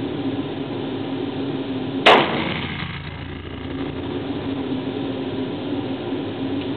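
A single revolver shot about two seconds in, ringing briefly off the walls of the indoor range. A steady low hum runs underneath.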